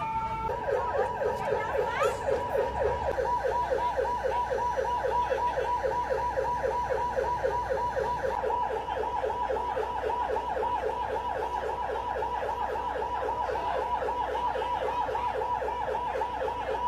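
Emergency vehicle siren on a fast yelp, sweeping up and down about four times a second without a break. A brief rising sweep cuts across it about two seconds in.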